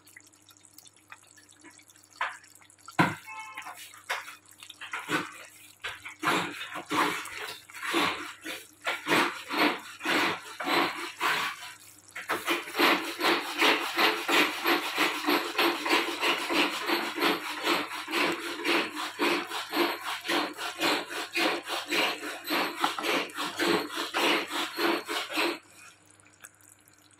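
Wet plops and clicks from chicken gravy cooking in a pan, in a quick, close run that grows denser and louder about halfway through, then stops shortly before the end.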